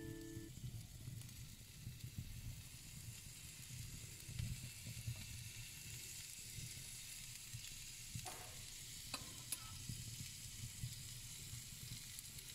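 Food sizzling as it fries in a hot pan: a steady fizzing hiss with light crackle, and two short knocks a little over halfway through.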